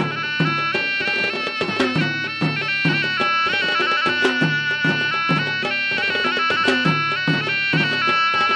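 Sri Lankan traditional dance music: a shrill reed pipe plays a melody stepping between held notes over steady drum strokes, about two a second.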